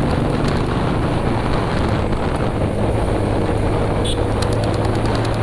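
Motorcycle engine running steadily while riding along, with wind rushing over the microphone.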